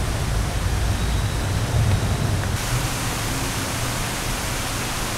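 Steady rushing outdoor noise with a fluctuating low rumble.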